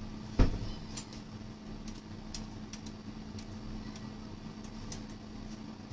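A single knock about half a second in, then scattered faint light clicks, as a glass oil bottle with a pour spout is handled over a frying pan on a kitchen hob; a steady low electrical hum runs underneath.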